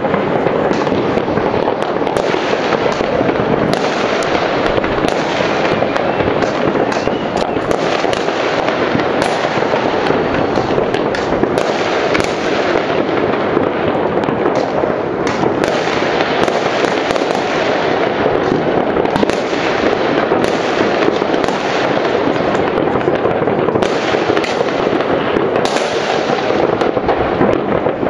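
New Year fireworks and firecrackers going off all over a town, heard from high above: a steady, dense mass of many overlapping bangs and pops with no break.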